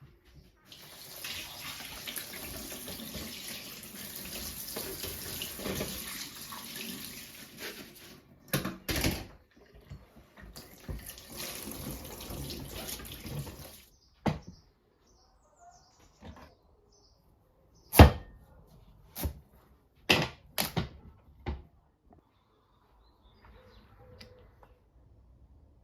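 Kitchen tap running into a sink for several seconds, shut off, then run again briefly. This is followed by a series of separate sharp knocks, the loudest about 18 seconds in.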